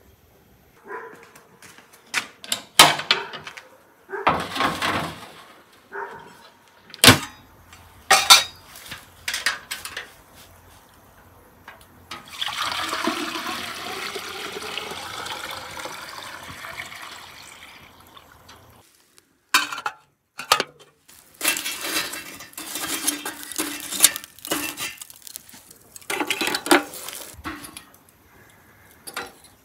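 Metal clanks and knocks as a brass samovar and a large metal cooking pot are handled with tongs, with about six seconds of water pouring in the middle.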